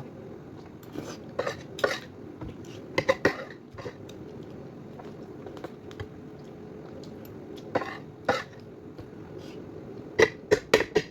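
Cutlery clinking against dishes during a meal: scattered single clinks, then a quick run of clinks near the end, over a faint steady hum.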